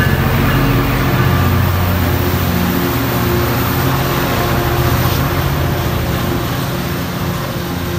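Metrolink F59PHR diesel locomotive passing at close range with its engine running, then bilevel passenger cars rolling by. The sound is a steady low engine hum with rail and wheel noise above it, easing slightly toward the end.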